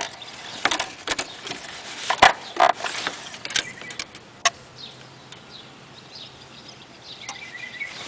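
Engine oil dipstick of a Ford 5.0 L V8 being slid down into its tube and drawn back out: a series of short scrapes and clicks over the first half. Birds chirp faintly in the background near the end.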